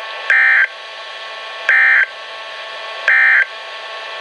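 NOAA Weather Radio SAME end-of-message data bursts: three short bursts of digital warbling tones about 1.4 s apart, over a steady radio hiss. They mark the end of the broadcast alert.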